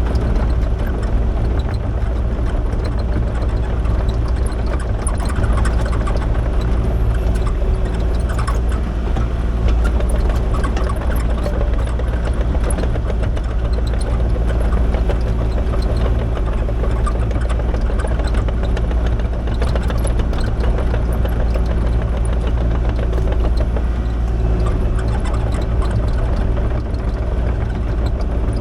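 Diesel engine of a Kubota KX040 mini excavator running steadily as the machine works, with a few light clanks.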